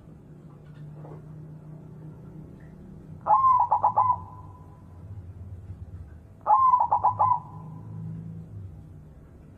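White zebra dove (perkutut) cooing: two calls about three seconds apart, each a quick run of about five clipped notes ending in a short fading tail.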